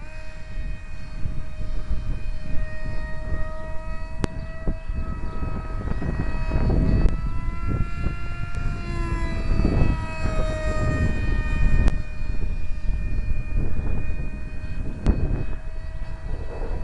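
Electric RC plane's 2200kv brushless motor spinning a 6x4 propeller in flight: a steady whine that rises and then falls in pitch about halfway through. Wind rumbles on the microphone underneath.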